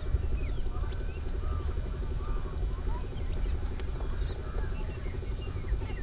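A flock of wetland birds calling: many short chirps and whistling notes, with a sharp high call about a second in and again past the middle, over a steady low rumble.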